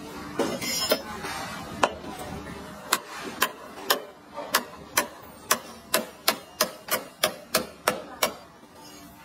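A knife chopping on a cutting board: a run of sharp, evenly spaced knocks starting about three seconds in, about two a second and quickening, stopping shortly before the end.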